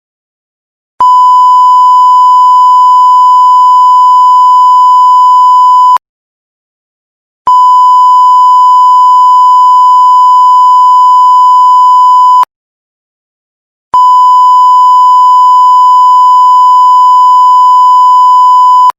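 Censor bleep: a loud, steady beep tone held for about five seconds, sounding three times with silent gaps of about a second and a half between.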